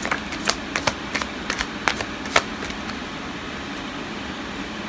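Tarot cards being handled: a quick run of light clicks and taps for about the first two and a half seconds, then only a steady background hiss.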